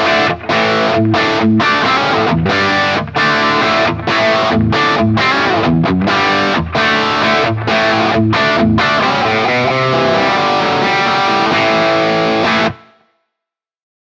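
Electric guitar overdriven through a J.Rockett Jeff Archer, a Klon-type overdrive pedal, playing short choppy chords with brief gaps between them. From about nine seconds in, a chord is held and rings, then cuts off suddenly near the end.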